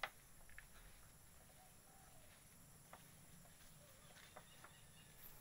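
Near silence: faint outdoor background broken by a few soft, sharp clicks, the sharpest right at the start.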